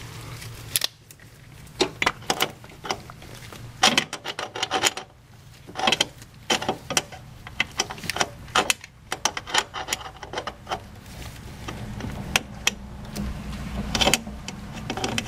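Metal wrench clinking and tapping on the brake line fittings of a master brake cylinder as the loosened line nuts are turned off, giving irregular sharp clicks over a low steady hum.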